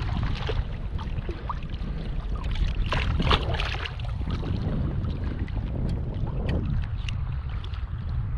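Wind buffeting the microphone, a steady low rumble with a noisy hiss over it, and a louder gusty rush about three seconds in.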